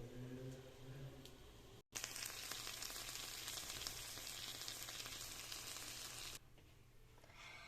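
Tortilla pizza sizzling in a lidded frying pan over low heat: a steady hiss that starts abruptly about two seconds in and cuts off shortly before the end. Before it there is only a faint low hum.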